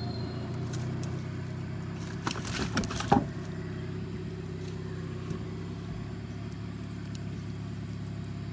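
Small boat engine idling steadily under the hauling of a fishing net, with a burst of rustling and knocks between two and three seconds in and a sharp knock just after three seconds as the net and its floats come over the wooden hull.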